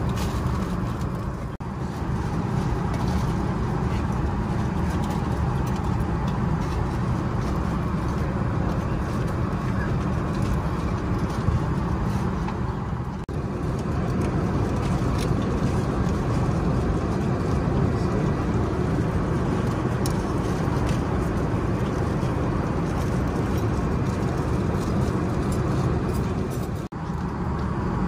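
Steady low rumble of engine and airflow noise inside the cabin of an Emirates Airbus A380, broken by three brief dips.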